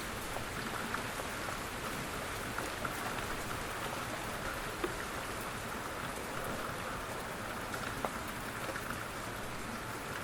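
Steady rain falling on a surface, an even hiss with scattered individual drips ticking through it.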